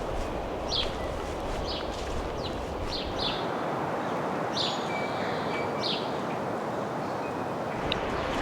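Small birds chirping: short, high chirps at irregular intervals over a steady background rush.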